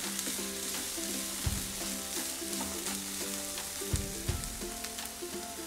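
Chopped vegetables and paneer sizzling in oil in a non-stick wok (kadai) while a spatula stirs them, with small scraping clicks against the pan and a few dull knocks about a second and a half in and again around four seconds.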